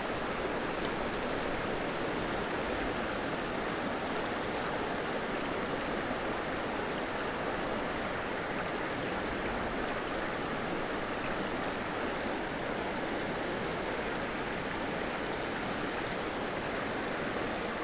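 Steady rush of flowing river water, an even hiss that holds level throughout with no distinct events.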